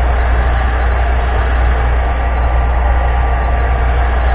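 Heat gun running steadily, blowing hot air to soften a piece of PVC pipe for bending.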